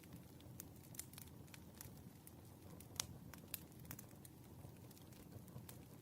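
Firewood fire crackling softly: irregular sharp pops and snaps over a low steady rumble, the loudest pop about three seconds in.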